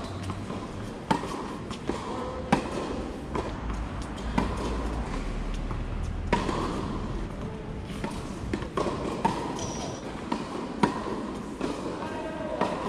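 Tennis balls being hit with rackets and bouncing on the court during a rally: a sharp pop every one to two seconds, at an uneven pace.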